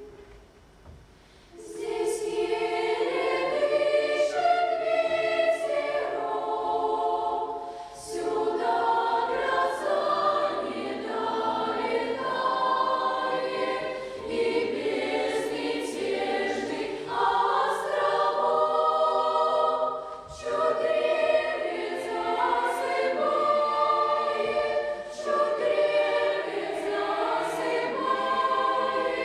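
A choir singing a song in long held phrases. It comes in after a brief pause at the start.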